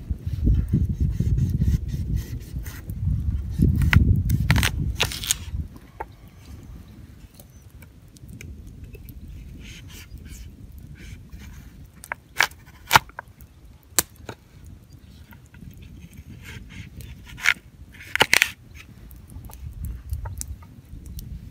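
A large knife slicing red potatoes on a wooden cutting board, the blade knocking sharply on the board a few times, with a campfire crackling. A low rumble fills the first few seconds.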